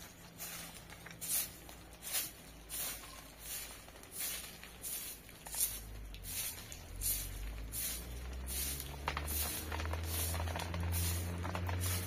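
A broom sweeping in regular strokes, about three swishes every two seconds. A low motor hum builds up behind it over the second half.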